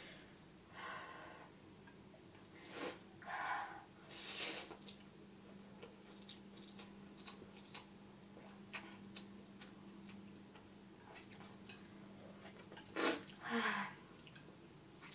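Someone eating spicy instant noodles with chopsticks: a few short slurps and breaths in the first five seconds, soft chewing and small clicks in the middle, then a louder slurp near the end.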